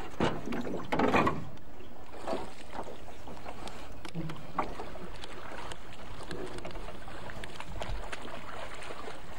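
Anchor rope hauled by hand into a small aluminium boat, the rope rubbing and knocking against the hull, with a louder burst of noise about a second in.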